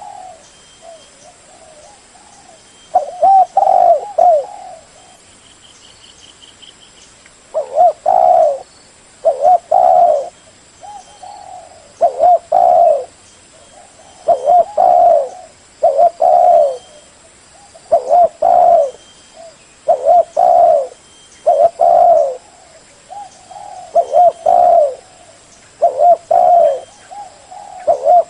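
Spotted dove cooing: repeated low phrases of a few coos each, coming every one to two seconds after a pause of a few seconds near the start.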